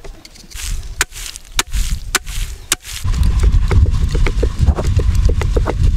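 A knife blade scraping the skin off a chikanda orchid tuber, in sharp strokes about every half second. About three seconds in this changes to a wooden box sieve being shaken over a plastic basin of ground flour: low knocking with many quick ticks.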